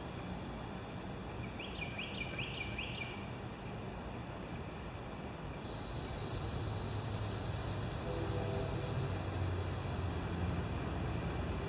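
Steady high-pitched chorus of summer insects, which jumps suddenly louder about six seconds in. A short run of four or five quick rising chirps comes about two seconds in.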